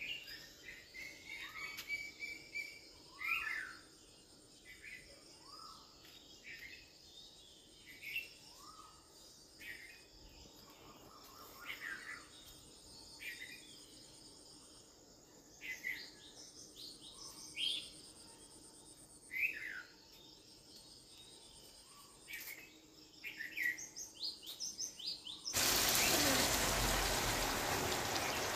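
A metal spatula stirring and scraping pork and potatoes in a steel kadai, with short high squeaks and chirps every second or two. About three-quarters of the way in, water goes into the hot pan and sets off a loud, steady sizzle.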